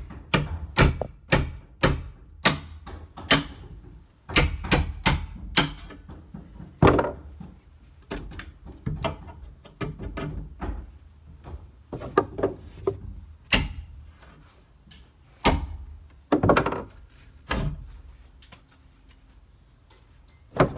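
Hammer knocking on a wooden framing post. There are quick runs of blows, about two to three a second, for the first six seconds, with one short break. After that come a few single knocks spaced a second or more apart.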